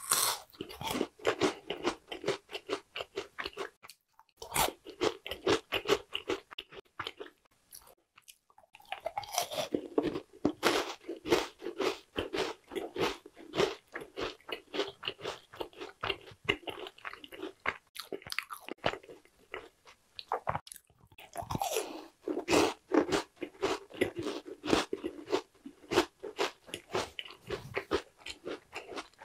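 Close-miked chewing of a small yakgwa, a fried Korean honey cookie: a quick stream of crunchy crackles with wet mouth sounds, pausing briefly a few times.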